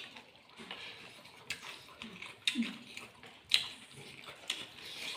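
Eating noises: chewing with sharp clicks and smacks about once a second.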